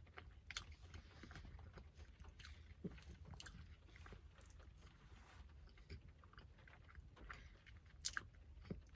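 Faint close-up chewing of banana bread: scattered soft mouth clicks and smacks, a few slightly stronger near the end, over a low steady hum.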